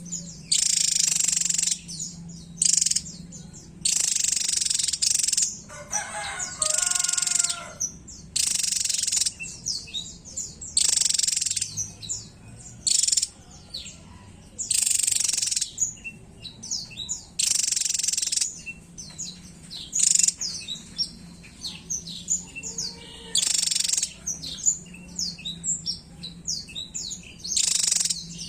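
Javan tesia singing at length: loud, high-pitched bursts of rapid song about a second long, coming every couple of seconds, with quick sharp chirps in between. A steady low hum runs underneath.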